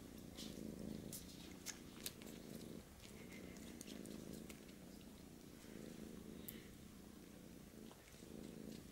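Domestic cat purring softly and steadily, the purr swelling and easing with each breath, with scattered soft clicks over it.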